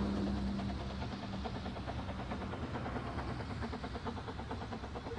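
Ffestiniog Railway narrow-gauge steam train running, a steady rumble with fine rapid clatter. A low steady hum fades out in the first couple of seconds.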